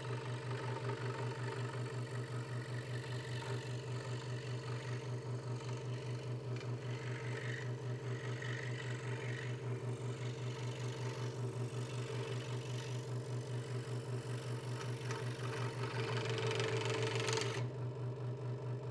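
Hegner Multicut 2S scroll saw running, its blade reciprocating in a fast, even rhythm as it cuts letters out of a wooden board. The saw is switched off right at the end.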